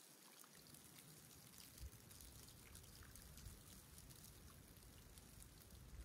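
Near silence: calm seawater lapping faintly at the shore, with a soft low thump about two seconds in.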